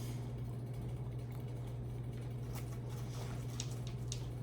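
Steady low electrical hum, with a few faint small clicks in the second half.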